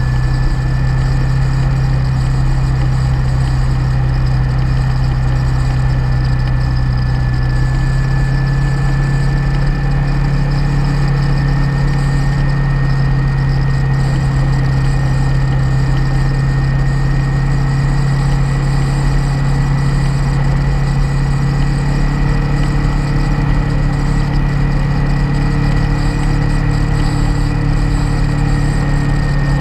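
Motorcycle engine running at a steady cruise under wind and road noise, with a thin steady high whine over it.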